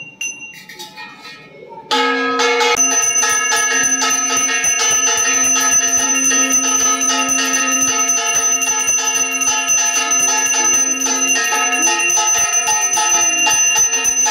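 Brass puja hand bell (ghanti) rung with rapid, continuous strokes for an evening aarti. It starts suddenly and loudly about two seconds in.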